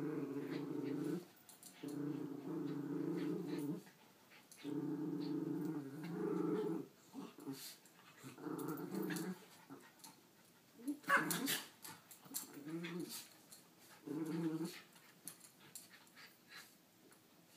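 Schnauzer growling in repeated long, low bouts while guarding a dog bed from another schnauzer that is trying to lie on it, with a sharper, higher outburst about eleven seconds in.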